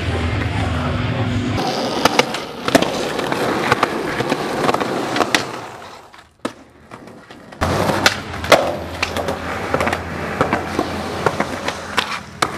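Skateboard wheels rolling on concrete, broken by sharp clacks of the board popping, grinding and landing, with a short lull about six seconds in.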